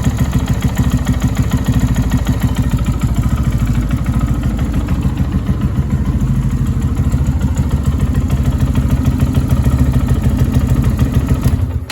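2022 Lifan KPR 200 motorcycle's single-cylinder four-stroke engine idling steadily just after an oil change, running to circulate the fresh oil and fill the filter. It cuts off abruptly near the end.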